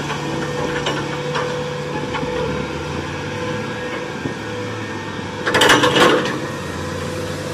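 Diesel engine of a cable-operated crawler crane running steadily as it swings its clamshell grab, with a brief louder clatter about five and a half seconds in.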